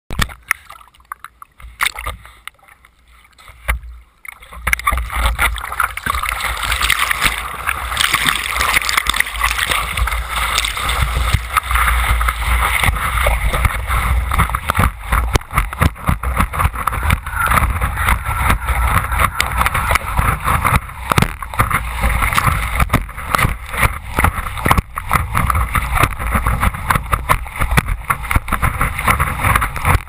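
Ocean water sloshing and splashing against a surfboard and the board-mounted GoPro, a steady rushing wash with a low rumble and frequent small splashes, heard through the camera's waterproof housing. It starts about four seconds in, after a quieter opening with a few knocks.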